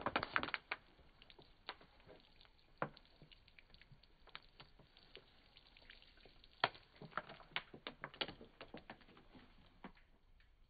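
Water splashed from a plastic water bottle pattering and spattering against a boat hull: quick crackly clusters of droplet hits, one at the start and more in the second half.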